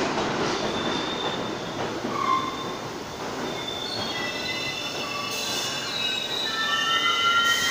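R62A New York City subway train braking into a station: a steady rumble of steel wheels on rail, with several high squealing tones from wheels and brakes building from about four seconds in and loudest near the end as the train slows to a stop.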